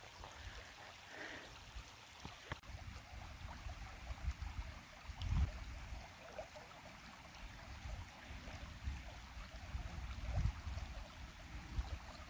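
Faint, steady rush of water from the small mountain waterfall of Obsidian Falls, with a few low rumbles, the strongest about five seconds in.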